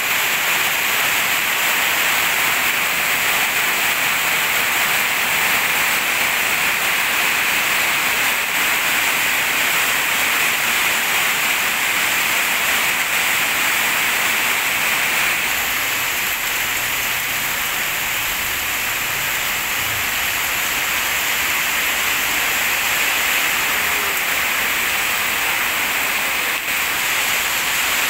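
Heavy rain pouring steadily onto a flooded concrete yard: a loud, even hiss of drops splashing into standing water.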